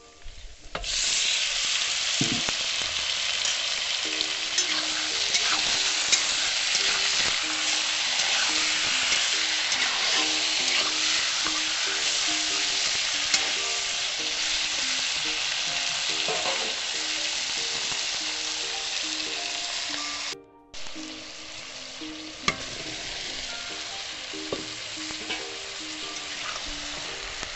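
Chicken pieces sizzling in hot oil in a black kadhai, the sizzle starting loudly about a second in as the marinated chicken is tipped in, and stirred with a spatula. After a cut about two-thirds of the way through, a quieter sizzle of the chicken cooking with pumpkin chunks.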